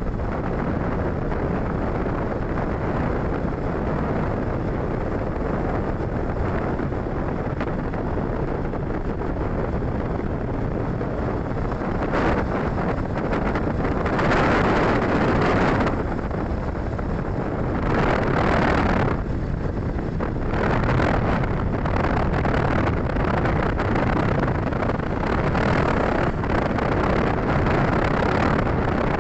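Steady wind rushing over the microphone while moving along a road, mixed with road and traffic noise. It swells louder twice, about halfway through and again a few seconds later.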